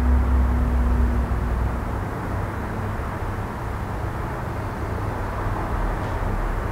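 Low, steady rumble with a faint hum, loudest for the first second or so and then easing to a steady background noise.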